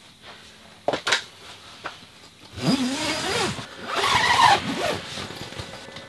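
A tent's door zip being pulled shut in two long rasping strokes, the pitch sliding as it runs along the track. A couple of sharp clicks come about a second before.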